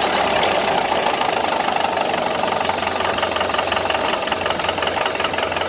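1931 Ford Model A's four-cylinder flathead engine idling steadily with a knock, whose cause has not yet been found.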